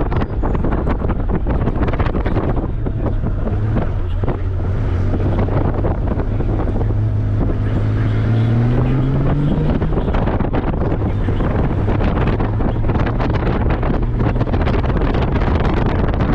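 Heavy wind rushing over the microphone on a moving Honda Gold Wing motorcycle, with the engine's low hum underneath. Near the middle, the engine note rises in pitch for a few seconds as it speeds up, then drops back.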